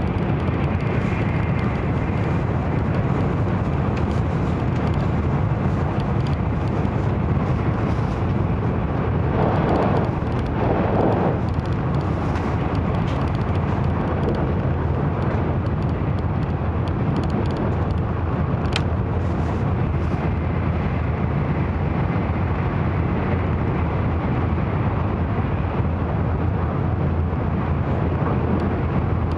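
Cabin running noise of an N700-series Shinkansen at speed, heard from inside the passenger car: a steady low rumble and hiss of wheels, rails and air. It swells briefly twice about ten seconds in, and a short sharp high sound comes just before the twenty-second mark.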